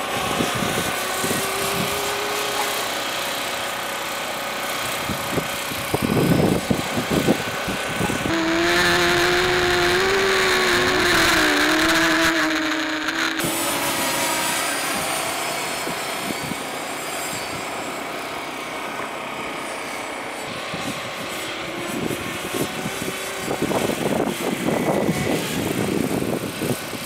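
Walkera Furious 320 quadcopter flying overhead, its motors and propellers buzzing with a pitch that wavers as the throttle changes. The buzz is loudest from about nine to thirteen seconds in.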